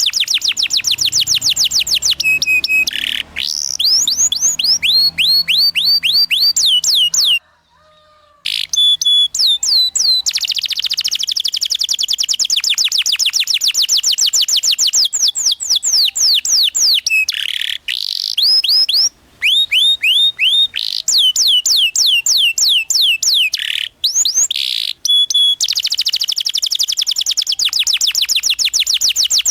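Domestic canary singing a long, tight rolling song: fast runs of high, downward-sweeping chirps, about eight a second, changing from one note type to the next, with a break of about a second near 8 seconds in.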